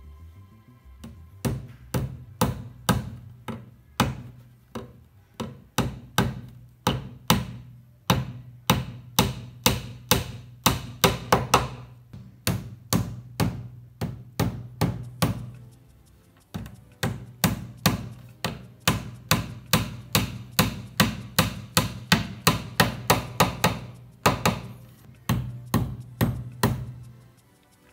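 A hammer tapping small nails through the hardboard back panel into the edges of an IKEA BILLY bookcase, in quick runs of sharp strikes with short pauses between nails.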